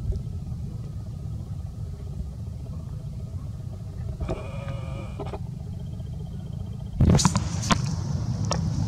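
Low, steady rumble of wind and handling noise on the microphone, with a brief wavering call from a long-tailed macaque about four seconds in. About seven seconds in comes a sudden louder burst of knocks and rustling.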